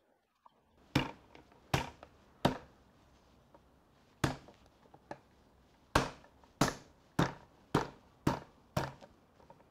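Solid-wood side of a PVC-pipe roller table knocked down by hand onto its broomstick shafts during a dry fit: about ten sharp wooden knocks. Three come about a second in, then after a pause a quicker run of six or seven, roughly two a second.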